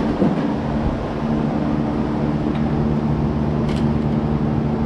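A steady low machine hum, with a couple of light metallic clicks from hand tools on the engine, the clearest nearly four seconds in.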